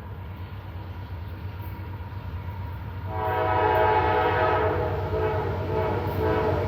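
Steady low rumble of a passing CSX freight train. About three seconds in, the locomotive's multi-chime air horn starts a long blast that holds to the end, given by the engineer as a horn salute.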